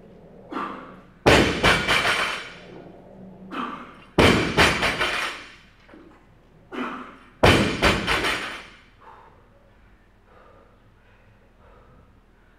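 A heavily loaded barbell with bumper plates drops onto a rubber gym floor three times, about three seconds apart. Each drop is a heavy thud followed by a brief rattle as the plates bounce, and a softer short sound comes just before each one.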